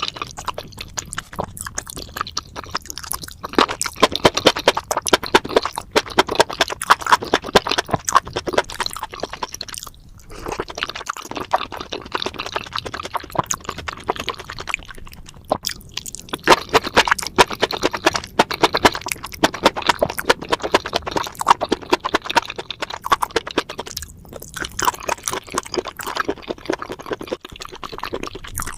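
A person chewing food with wet, smacking mouth sounds. The chewing comes in bursts, broken by short pauses about 10, 15 and 24 seconds in.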